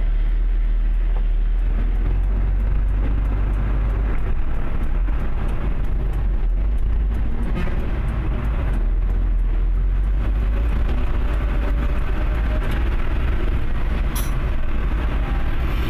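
Heavy truck's engine running steadily with a deep rumble, heard from inside the cab as it creeps along a rough, muddy road. A brief sharp knock comes near the end.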